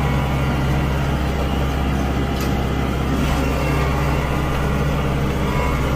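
Kubota tractor's diesel engine running steadily, heard from the operator's seat.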